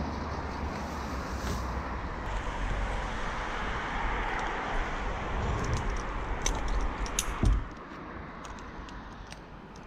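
Metal climbing hardware on a tree climber's harness clicking and clinking as he moves on his rope, over a steady rushing noise. A few sharp clicks come in the second half, ending in a heavy thump, after which the rushing noise drops off.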